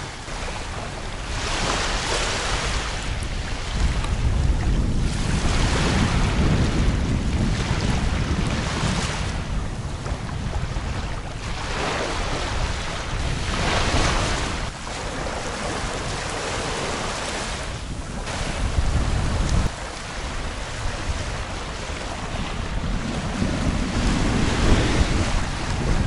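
Small sea waves breaking and washing up a sandy beach, surging in every couple of seconds. Strong wind buffets the microphone with a low rumble.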